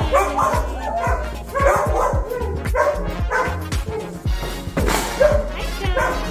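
Several dogs barking and yipping in quick, overlapping calls, over background music.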